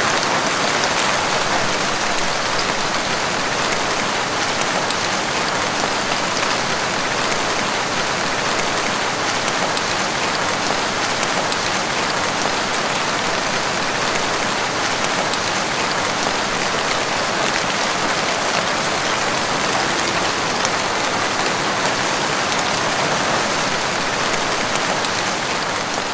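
Steady rain falling on leafy plants.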